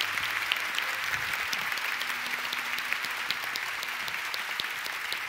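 Steady applause from many people clapping together.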